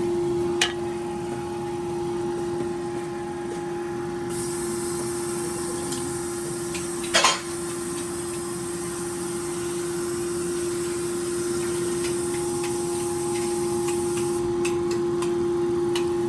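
Cooking pot and utensils being handled: one sharp knock about seven seconds in and a few light clicks near the end, over a steady hum.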